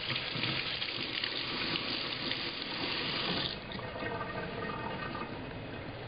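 Kitchen tap running into a sink, shut off about three and a half seconds in, followed by fainter splashing.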